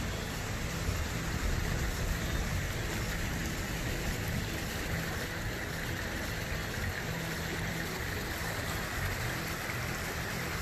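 Steady rushing of running water from a small mountain creek, an even hiss with no breaks.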